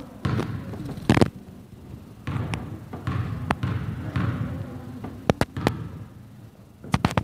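Basketball bouncing on a gym floor during play: sharp single bounces about a second in and again a couple of seconds later, then quick runs of three bounces later on, over a murmur of gym noise.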